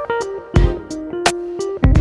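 Background music: plucked guitar notes over a steady beat of low drum thumps and sharp percussive hits.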